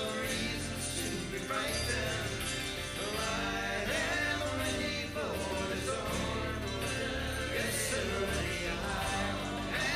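Live band music with voices singing over a steady bass line.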